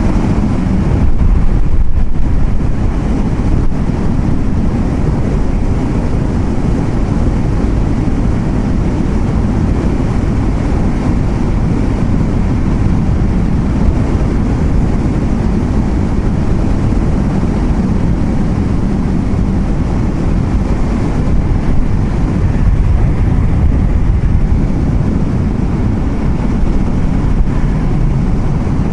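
Car driving along a road: a steady, loud, low road and engine rumble.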